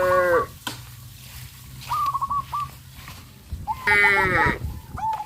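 Livestock bleating: four high, quavering calls, each broken into short wavering pulses, come one after another over a faint low steady hum.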